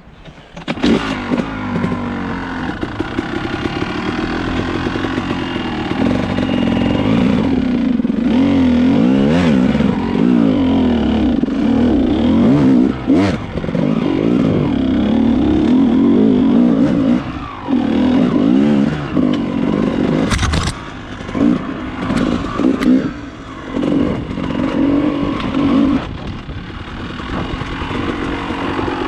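Dirt bike engine running under load as the bike pulls away from a stop and climbs a rocky trail. It gets much louder about a second in, then its pitch rises and falls with the throttle, with brief drops when the throttle is rolled off. There is a sharp knock about two-thirds of the way through.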